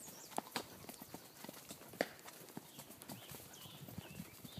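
Horses' hooves clip-clopping at a walk on a dirt trail, a Tennessee Walking Horse's among them, heard as irregular sharp clops.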